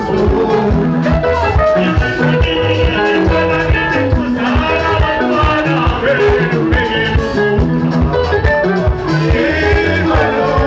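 Zimbabwean rumba band playing live: electric guitars, bass and drum kit keeping a steady beat, with several men singing into microphones over it.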